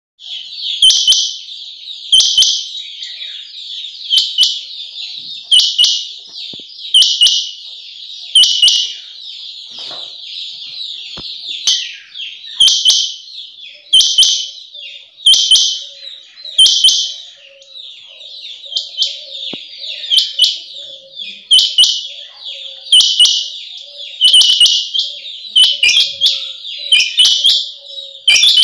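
Female rain quail calling: a loud, high double note repeated about every one and a half seconds, coming a little faster near the end, with steady high-pitched chatter between the calls. It is the female's call, used as a lure to draw male rain quail into a net.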